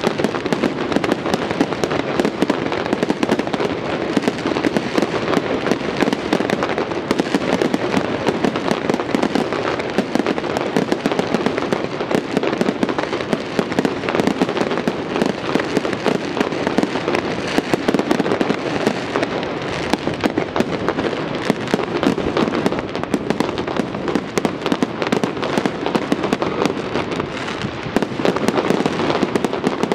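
Fireworks display going off in a dense, continuous barrage: many rapid, overlapping bangs and crackles.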